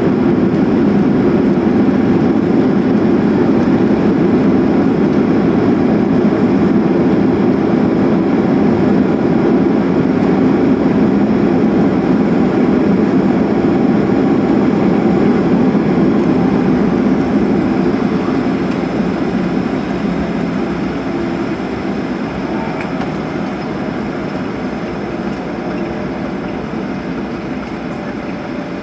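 Loud, steady rumble of a Boeing 737 heard from inside the cabin during its landing, easing off gradually over the last ten seconds or so as the airliner slows.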